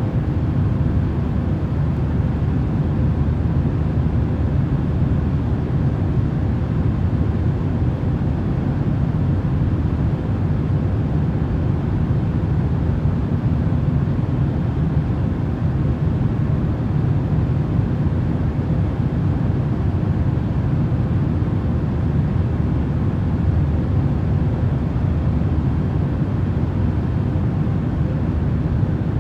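Continuous, even, deep rumbling noise that never changes, heavy in the lows and thin in the highs, with a faint steady hum in it: a sleep-aid noise track, of the sort sold as airplane or fan white noise.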